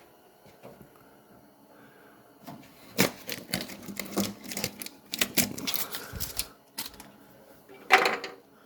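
Hands fitting 3D-printed flexible resin grommets into the holes of a car's steel firewall. After a quiet start, a run of irregular clicks and knocks begins about three seconds in, with the loudest knock near the end.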